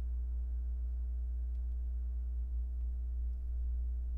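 Steady low hum with a few fainter, higher steady tones over it, unchanging throughout; a couple of faint ticks of small parts being handled.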